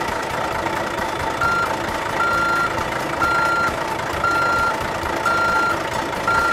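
Truck reversing-alarm beeps, six short single-pitched beeps about one a second, starting about a second and a half in, over a steady background noise: the sound of a dump truck backing up.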